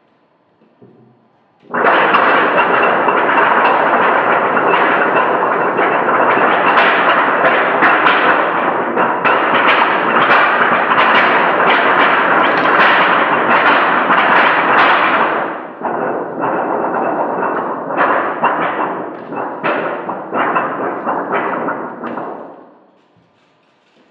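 Loud, dense crackling noise that starts suddenly about two seconds in and holds steady. Several seconds from the end it breaks into shorter bursts, then fades out.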